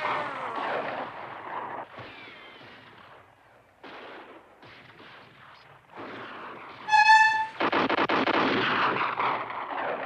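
Battle sound effects: gunshots that come and die away several times, then a loud, sustained stretch of gunfire through the last few seconds. A short, high bugle note sounds just before the heavy firing begins.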